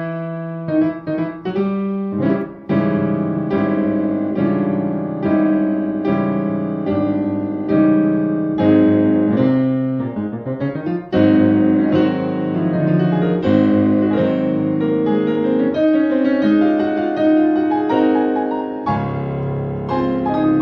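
Solo piano music: a continuous run of struck notes and chords over low bass notes.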